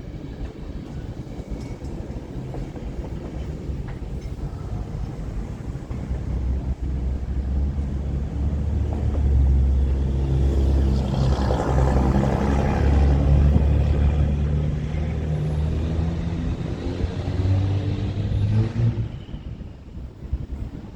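Freight cars of a long mixed freight train rolling past with a steady low rumble, which swells louder through the middle and eases off near the end.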